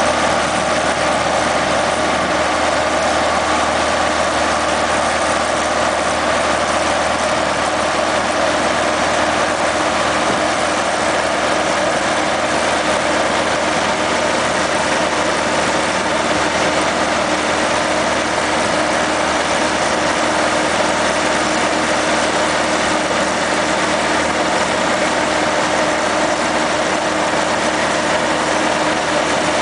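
Engine of the machinery working a mole plough, running steadily under load with a held low hum and no change in speed.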